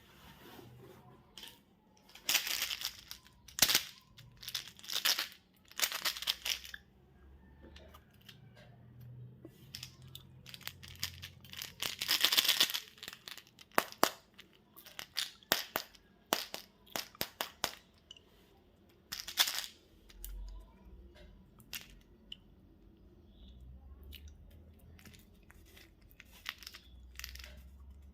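Candy and chocolate wrappers being torn open and crinkled: a string of short rips and crackles with scattered sharp clicks and taps. The longest rip comes about twelve seconds in.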